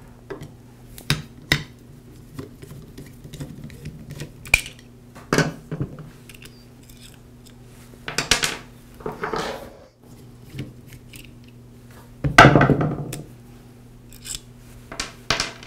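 Carbon brushes being removed from a Porter Cable 690 router motor with a screwdriver and fingers: scattered clicks, scrapes and small knocks of metal and plastic, with louder handling knocks about eight and twelve seconds in.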